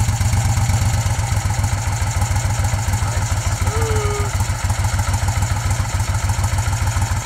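Moto Guzzi Eldorado's air-cooled 850 cc V-twin idling steadily with an even, low pulsing beat.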